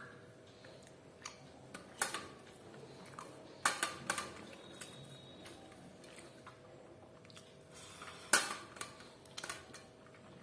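Eating utensils clinking against a dish a handful of times, sharpest about two, four and eight seconds in, over a faint steady hum.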